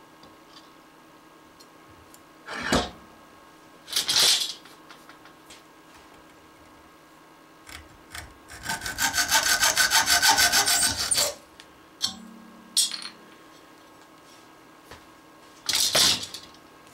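Hacksaw cutting through an aluminium TV-antenna element rod clamped in a bench vise: about two and a half seconds of quick back-and-forth strokes in the middle. Single metal knocks come before the sawing, and a loud clatter near the end.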